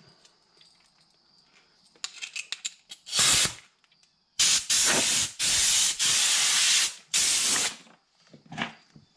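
Compressed air blasting from an air tool attachment on the Mastercraft reel's hose, testing the newly connected line: a few clicks of the fittings about two seconds in, a short burst of air at about three seconds, then four longer blasts one after another.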